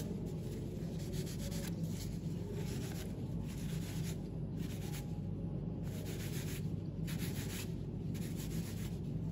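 A folded paper towel wet with paint thinners being rubbed over an anvil's surface in repeated wiping strokes, with a pause about four to six seconds in. It is wiping excess paint off the high spots of the anvil's stamped markings.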